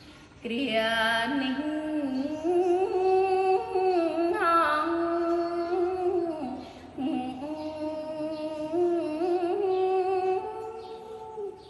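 A woman chanting Khmer smot solo, with no instruments: long held notes with slow wavering ornaments. She breaks for breath about half a second in and again at about six and a half seconds.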